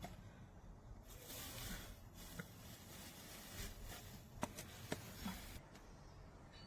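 Faint handling noise: soft rustling with a few light, sharp clicks, the middle two close together.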